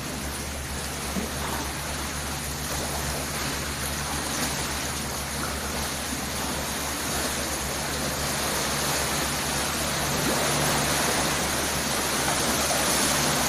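River water sloshing and rushing as boat wake waves surge against and into a riverside house, a steady watery noise that grows louder about ten seconds in, with a low steady hum underneath.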